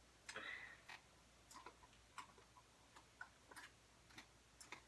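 Near silence with a dozen or so faint, irregular clicks and ticks, small handling noises.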